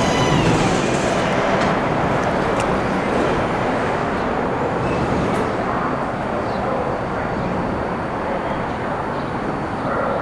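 Bombardier R179 subway train coming to a stop at an elevated station: a high whine fades out with a slight downward glide about half a second in, then a steady rumble of the standing train and its surroundings.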